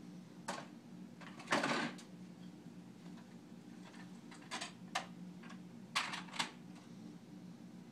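Toys knocking and clattering as a toddler rummages through a toy chest: scattered knocks, with a louder, longer clatter about a second and a half in.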